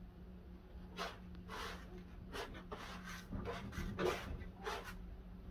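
Dry grains rustling and clicking in a plastic basin as a hand picks through and sorts them, in short irregular strokes.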